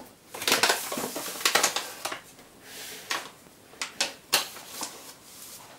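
Paper flour bag rustling as flour is shaken out onto the countertop, followed by several separate short knocks and taps as the bag is set down and the dough bowl is handled.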